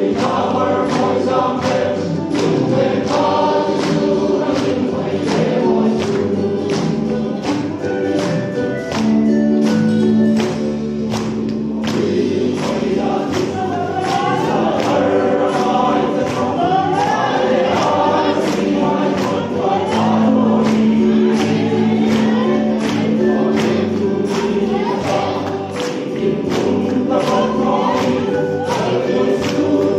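Men's choir singing a gospel song in several parts, with held notes, over a steady percussive beat of about two strokes a second.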